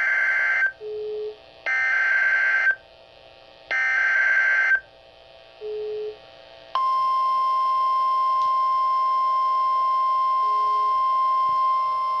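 Emergency Alert System SAME header: three warbling data bursts of about a second each, a second apart, with a short low beep in the first two gaps. About seven seconds in, the steady single-pitch National Weather Service attention tone starts and holds, signalling a severe thunderstorm warning.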